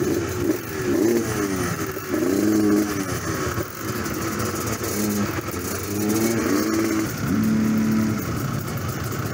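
Off-road motorcycle or quad engine being revved repeatedly, climbing in pitch, held at high revs for about a second, then dropping back, four or five times, with other engines running at idle underneath.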